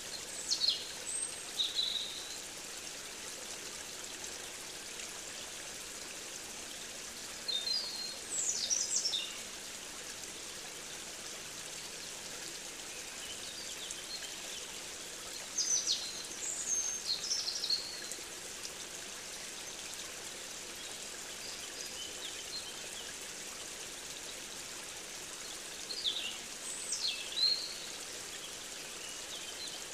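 A songbird singing four short phrases of quick, high, falling notes, one about every eight to ten seconds, over a steady rush of running water.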